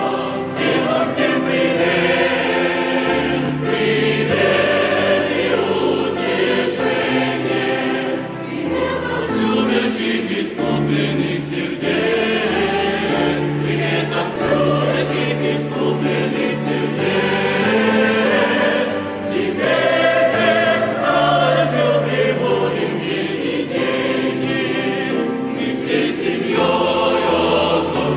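A choir singing a hymn in slow, held notes over a sustained low part.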